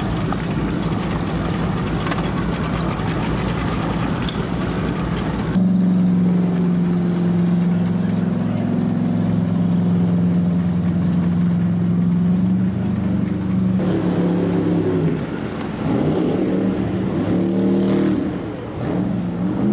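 The Q boat's engine running at a steady idle, then revving up and down repeatedly as the boat accelerates away through heavy spray. Before a cut about five seconds in, a dense low engine rumble.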